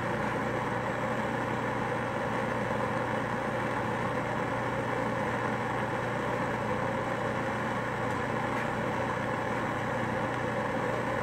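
Handheld gas torch on a yellow fuel cylinder burning steadily with a continuous rushing hiss while a glass rod is held in its flame.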